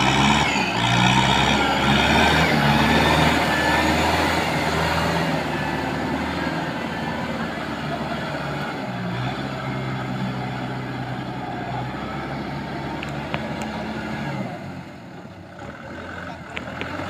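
Kubota tractor's diesel engine pulling hard through a flooded, muddy rice paddy, with water churning around the wheels. The engine revs up at the start, runs loud for several seconds, then settles to a steadier, lower note and eases off near the end.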